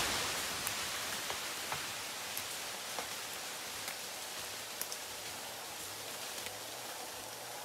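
Leaves, twigs and debris pattering and rustling down after a big tree has crashed to the ground: a loud din fading away within the first second into a steady hiss dotted with small ticks.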